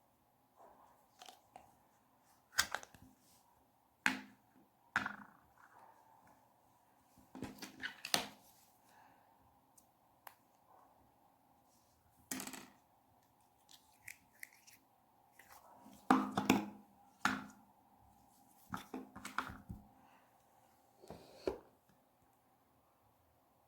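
Clear pink and blue mixed slime being squished and pressed by hand: irregular bursts of sharp pops and squishes, a second or more apart, with quiet between.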